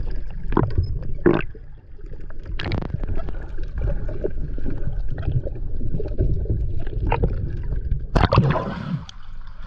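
Muffled underwater rumble and water movement picked up by a submerged camera as a diver moves, with scattered knocks and gurgling bubbles. A louder burst of bubbling comes about eight seconds in.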